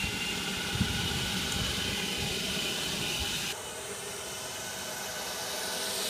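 EGO 56-volt cordless leaf blower running flat out as a wheeled jet car pushed along by its own thrust: a steady rush of air with a faint high whine from its fan. About three and a half seconds in the sound drops suddenly and gets a little quieter.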